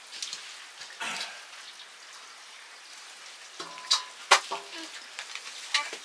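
Food sizzling steadily in a pan over a wood fire, with a few sharp clinks and knocks, the loudest about four seconds in.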